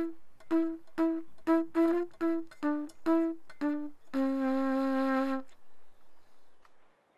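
Music from a flute-like wind instrument: about ten short, separate notes, then one long, lower note held for over a second before it stops.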